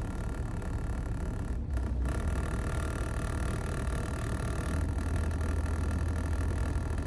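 A ship's engine running with a steady low rumble and a faint steady hum above it.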